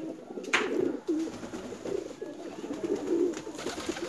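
A flock of domestic fancy pigeons cooing, many low warbling coos overlapping. A sharp click sounds about half a second in.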